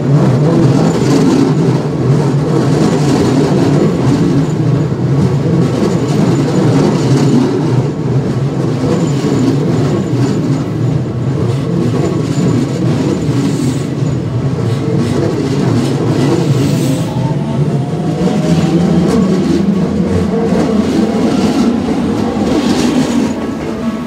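Toei Asakusa Line electric commuter train passing close by at a level crossing, its wheels rumbling and clattering over the rail joints, with the crossing's warning bells ringing steadily over it. A faint rising motor whine comes in about two-thirds of the way through.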